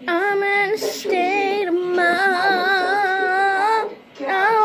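A girl singing unaccompanied in long held notes with vibrato, breaking off briefly about a second in and again shortly before the end.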